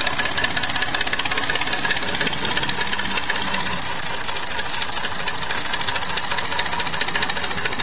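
Tractor diesel engine running on an 80% jatropha biodiesel and 20% fossil diesel blend. It runs steadily with a fast, even knock.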